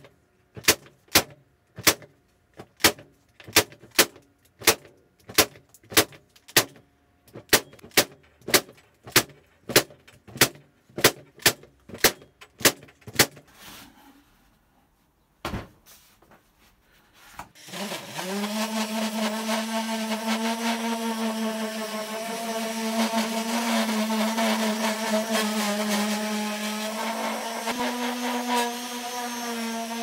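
A nail gun firing again and again, about two shots a second, nailing pallet-wood boards together. After a short pause a FERM random orbital sander starts up and runs steadily.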